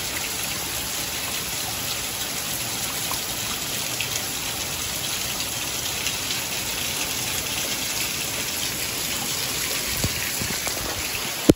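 Heavy monsoon downpour drumming steadily on a flat concrete rooftop, an even hiss of rain with no let-up. A single sharp click near the end.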